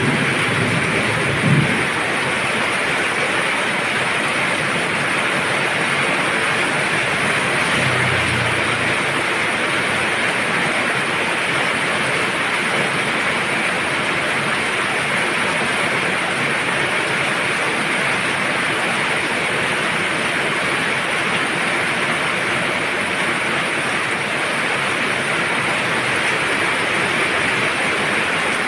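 Steady heavy rain falling, an even hiss throughout, with a brief low rumble about a second and a half in and another about eight seconds in.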